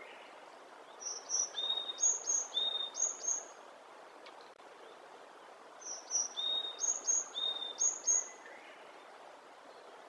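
Varied tit singing: two phrases a few seconds apart. Each is a repeated figure of paired high whistled notes and a lower, longer note, run through about three times.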